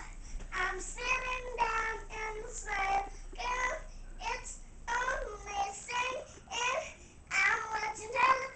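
A young girl singing on her own with no accompaniment, in short phrases with held notes.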